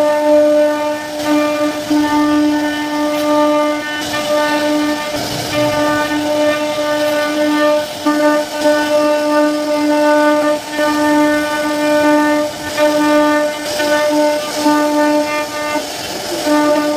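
CNC wood router spindle running at a steady high whine while its bit carves a relief pattern into a wooden panel, the tone dipping briefly now and then.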